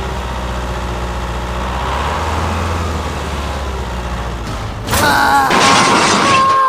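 Low, steady engine-like rumble. About five seconds in, a louder noisy burst comes in with a steady horn-like tone over it.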